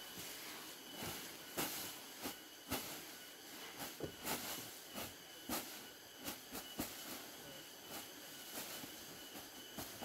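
Dry clove leaves rustling and crackling in irregular bursts as they are tipped from a sack and slide down onto a heap.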